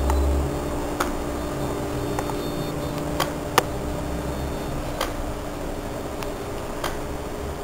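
Electronic throttle body's DC motor driven by a PWM signal, giving a steady whine over a low hum, with a handful of sharp clicks, the loudest about three and a half seconds in.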